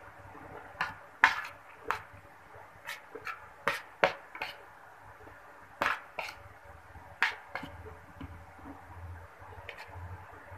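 Eating by hand from a ceramic plate: about a dozen sharp, unevenly spaced clicks and clinks of fingers and food against the plate.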